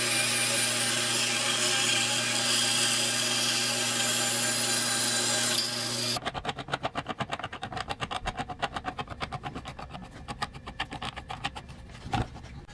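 A power tool runs steadily while working wood, then stops abruptly. After that come quick rhythmic rubbing strokes on wood, about four a second, fading out, with a single click near the end.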